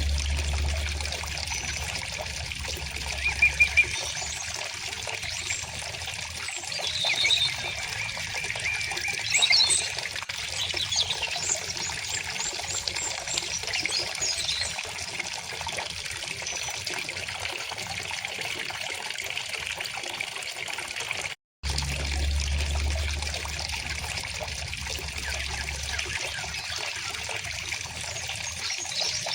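Steady trickle of a river or stream, with birds chirping in short calls over it, clustered in the first third and again near the end. About two-thirds of the way through the sound cuts out for a split second and starts again, with a low rumble underneath for a few seconds after the restart and at the start.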